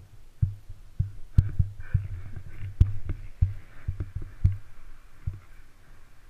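Motocross bike engine idling, heard as a low, uneven thumping.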